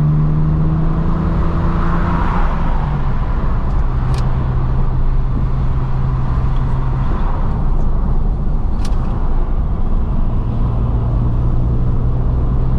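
BMW 335i's N54 twin-turbo inline-six running while the car drives, its note climbing slightly over the first couple of seconds and then holding steady over road rumble. Two brief clicks sound partway through.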